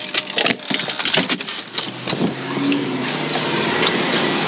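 A quick run of clicks and knocks from getting out of a parked car, then a steady rush of outdoor street noise from about two seconds in.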